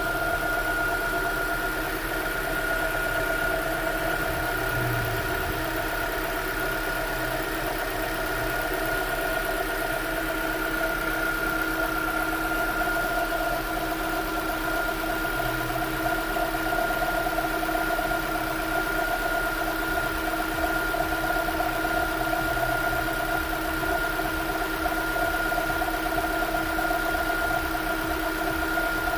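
A GM Corsa-line car engine idling just after starting, with a steady whining drone over the idle that sounds like a water pump or belt tensioner. The owner puts the noise down to an oil pump that is starting to fail.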